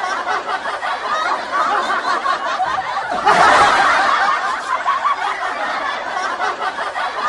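People snickering and laughing, loudest for about a second some three seconds in.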